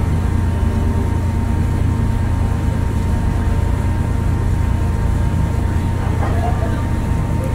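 Steady low drone of the JR West Miyajima ferry's engines while under way, heard from the open deck, with a thin steady whine above it.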